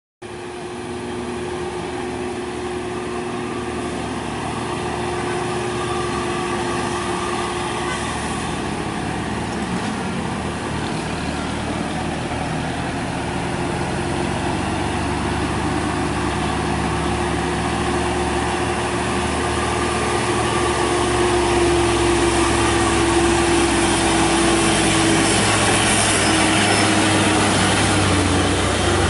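Diesel engines of heavy Hino trucks running steadily, with a constant hum over the engine noise, growing louder in the last third as a coal-laden truck labours through a tight hairpin turn going downhill.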